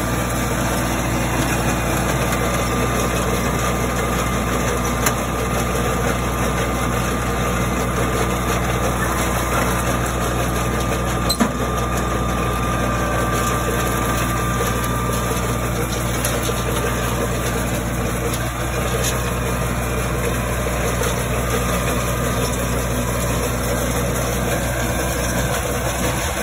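Tractor engine running steadily at constant speed, a continuous drone that does not change, with a faint click about five seconds in and a sharper one around eleven seconds in.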